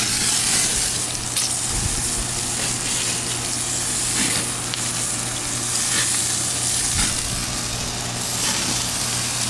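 Bacon frying in a pan on a gas grill's side burner, with burgers cooking over open flames beside it: a steady sizzle with a few faint pops.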